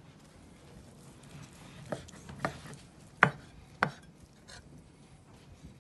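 Large knife slicing through a rack of smoked pork ribs, striking the wooden cutting board with four sharp knocks in the second half. The third knock is the loudest.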